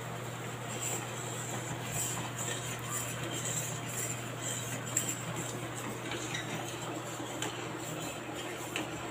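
Metal spoon stirring a pan of melted soap base and aloe vera gel, with scattered light clinks and scrapes against the stainless steel pan over a steady low hum.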